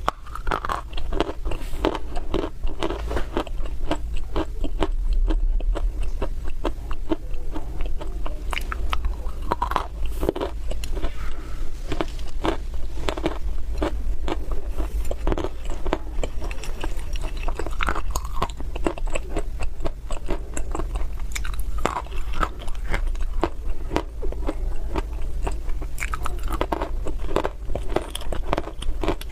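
Close-miked biting and chewing of dry, crunchy clay (loess) chunks: continuous crisp crunching and crackling, with a stronger bite every few seconds.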